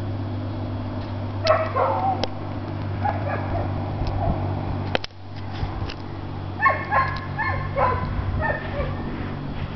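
A dog barking and yipping in short bouts: about a second and a half in, again around three to four seconds, and again from about six and a half to nine seconds, over a steady low hum.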